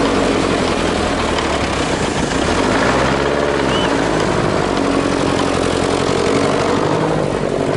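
GAZ-66 truck's engine running under load as it pushes through deep snow, its pitch rising and falling a few times.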